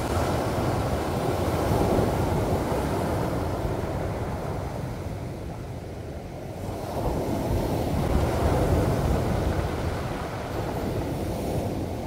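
Sea waves breaking and washing up a beach of rounded pebbles and cobbles, a steady rushing surf. It swells about two seconds in, eases into a lull near the middle, and swells again from about eight seconds.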